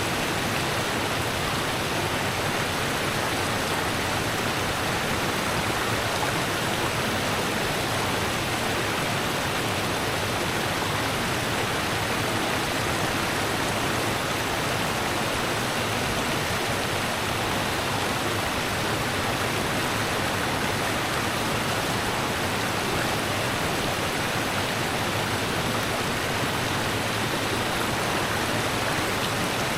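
Rushing river water, a steady, unbroken rush with no changes.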